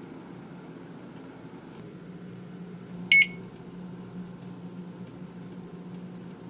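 A single short electronic beep from a GE range's control panel about three seconds in, over a steady low hum in the kitchen.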